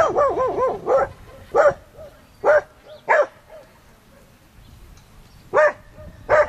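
Dog barking: a quick string of four or five yapping barks in the first second, then single barks every half second or so, a quiet gap of about two seconds, and two more barks near the end.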